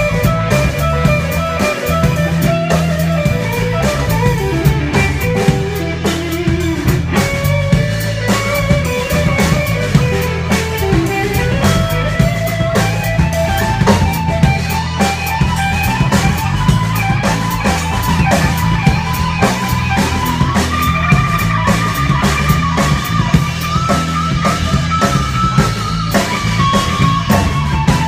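Live band playing an instrumental passage: an electric guitar plays a wandering lead line that climbs in pitch over a plucked upright bass and a drum kit. The upright bass is close by and prominent in the low end.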